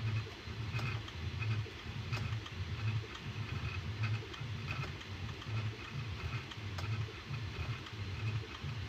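Bambu Lab A1 Mini 3D printer running a print: its stepper motors hum in low pulses about twice a second, with light ticks from the moving print head.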